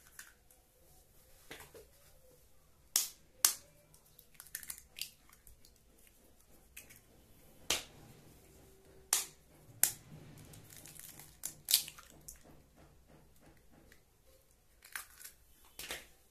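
Duck eggs being cracked open one after another: a scatter of sharp taps and cracks of eggshell a few seconds apart, with quiet handling in between.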